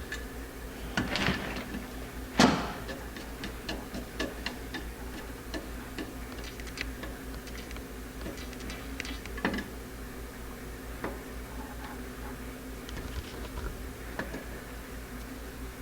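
Light clicks and taps of small metal carburetor parts being handled and fitted, the new needle and seat going in, with a louder knock about two and a half seconds in, over a steady low hum.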